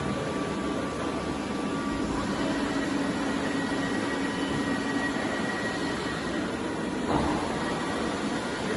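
TOS CNC boring machine running: a steady mechanical hum with faint motor whines that shift pitch partway through, and a sudden louder surge about seven seconds in.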